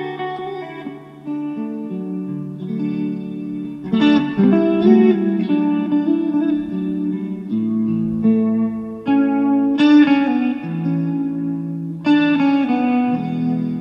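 Background music led by guitar, with held notes that change every second or so and stronger plucked attacks about four, ten and twelve seconds in.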